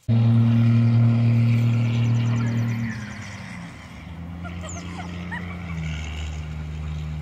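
Steady low drone of a vehicle engine, loud at first, easing lower about three seconds in and shifting pitch near six seconds in, with a few short high squeaks over it.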